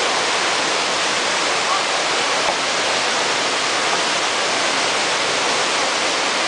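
Small waterfall pouring over rocks into a shallow pool: a steady, even rush of water.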